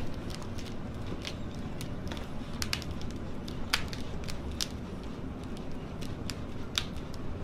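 A chiropractic adjustment: scattered light clicks and pops of the patient's joints and the treatment table over a steady low background hiss, the sharpest a little before the midpoint.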